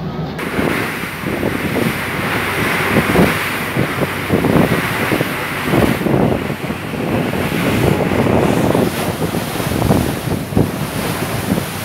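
Wind buffeting the microphone in uneven gusts over the rush of water from a moving ferry's wake.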